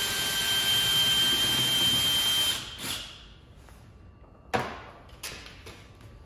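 Cordless drill/driver running steadily with a high whine for about two and a half seconds as it unscrews a 10 mm bolt holding down the frunk shell, then stopping. A sharp knock follows about four and a half seconds in.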